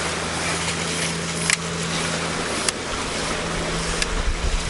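Steady sea-and-wind noise on an exposed shore rock: waves washing and wind buffeting the microphone, with a low steady hum that stops about halfway through and a few sharp clicks.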